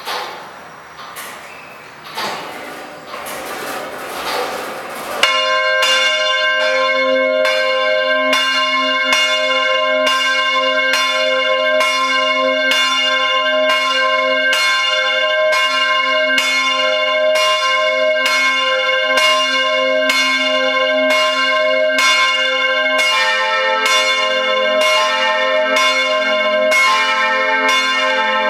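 Swinging church bells from a ring of four 1953 Rincker bronze bells, heard close up in the bell chamber. After a few seconds of rising noise, the first bell starts striking about five seconds in and rings in a steady, even rhythm. About 23 seconds in, a second, lower-pitched bell joins as the full peal builds up.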